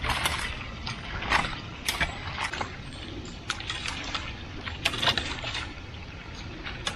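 Irregular wet squelches, splashes and scrapes from work in waterlogged mud: short uneven strikes every fraction of a second over a low background wash.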